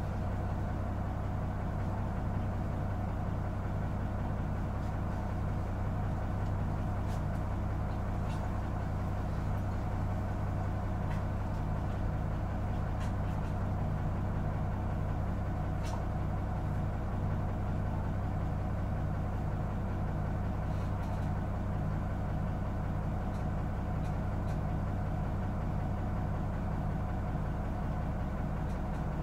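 A Mitsubishi Fuso Aero Midi bus's six-cylinder diesel engine idling steadily, heard from inside the bus, with no revving or change in pitch.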